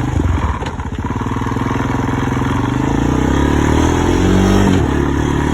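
Honda TRX 250X ATV's single-cylinder four-stroke engine pulling away, its pitch climbing steadily from about two seconds in, then dropping back near the end.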